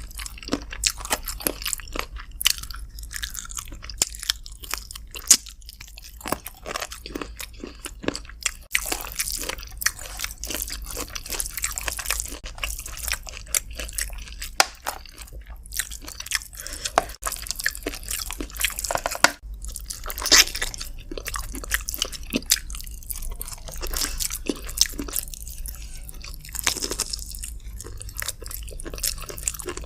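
Close-miked eating of chicken with rice: irregular wet chewing, smacking and crunching bites, over a faint steady low hum.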